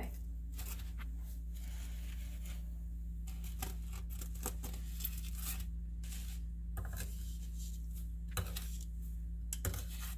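Intermittent scratching and crinkling as a freshly fried donut is worked with a utensil on a plate and paper towels, over a steady low hum.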